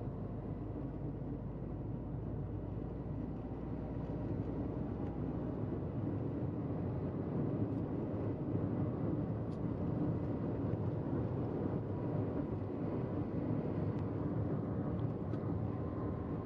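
Steady road noise heard from inside a moving car: tyres running on a concrete road surface, with the car's engine and wind. The noise grows a little louder about four seconds in.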